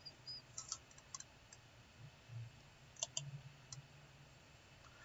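Near silence with a few faint clicks at irregular intervals over a low steady hum.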